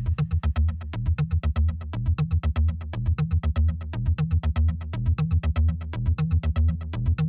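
Background electronic music: a fast, even synthesizer pulse over a repeating bass line.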